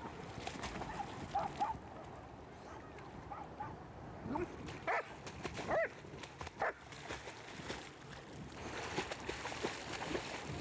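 A dog splashing and thrashing in water, with a few short yelps about five to six seconds in.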